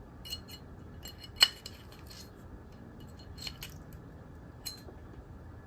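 Light metallic clicks and clinks from a tool working at the metal video connectors of a TV switchbox, about half a dozen scattered taps with a short high ring, the loudest about one and a half seconds in.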